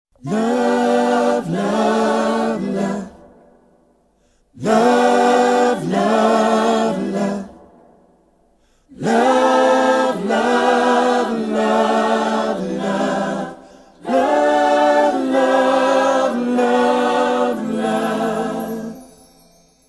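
Choir singing a cappella in four phrases of held notes, two short and then two longer, with brief pauses between them.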